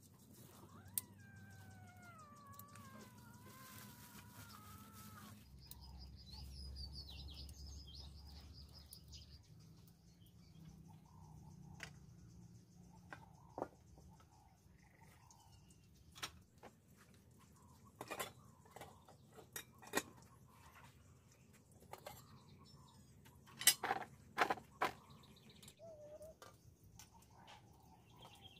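A drawn-out animal call with a wavering, falling pitch for the first few seconds, then high bird chirping. After that come scattered sharp clinks and knocks of a metal utensil against a wok, a cluster of them loudest in the second half.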